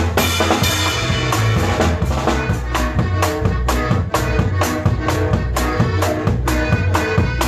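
Live norteño conjunto music, an instrumental passage with a steady, danceable drum-kit beat under sustained melody notes. A cymbal crash rings out right at the start.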